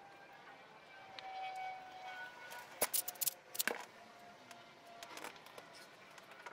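A few sharp clicks and taps of small metal items being handled and set down on a wooden workbench, bunched about three seconds in, over faint steady tones in the background.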